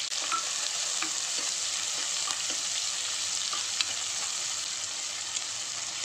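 Sliced onions sizzling in hot sesame oil in an aluminium pressure pan, stirred with a steel ladle that clicks and scrapes against the pot now and then.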